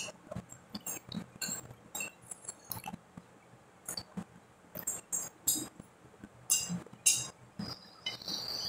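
Close-up eating sounds: irregular wet mouth clicks and chewing as stewed chicken feet are eaten by hand, with light clinks of dishes.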